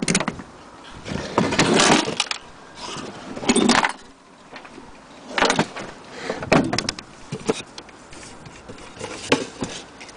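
Wooden clock cases being handled: irregular knocks, scrapes and rattles, about one every second or two.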